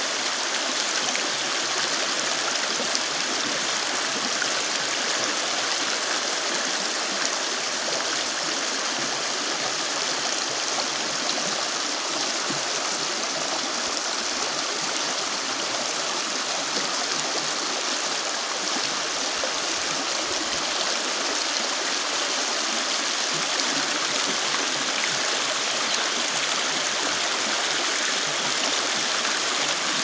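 Shallow river water rushing steadily over rocks in a small rapid, an even, unchanging babble of white water.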